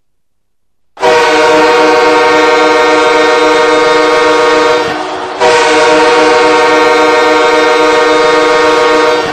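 Hockey goal horn blowing two long, steady blasts of about four seconds each, separated by a brief dip, starting about a second in.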